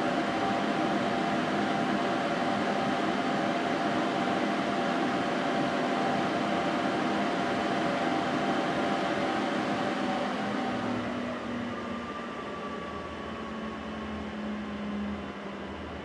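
Fujitsu Siemens RX300 S5 rack server's cooling fans running at full speed with a steady whine and rush of air during power-on self-test, then spinning down and growing quieter from about ten seconds in.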